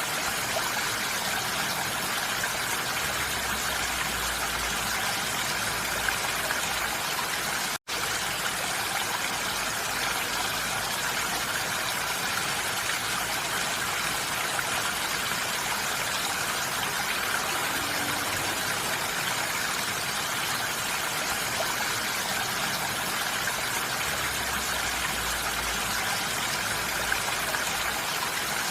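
Steady rain falling on a roof, a dense even hiss, heard from inside. A split-second gap breaks it about eight seconds in.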